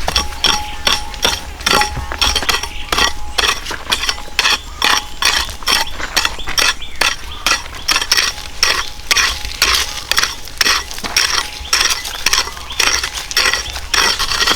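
A hand tool striking hard, stony material over and over, with sharp clinking strokes at about two to three a second, steady throughout.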